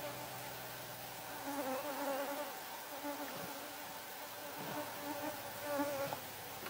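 An insect buzzing in short spells, a droning hum that wavers in pitch and comes and goes several times.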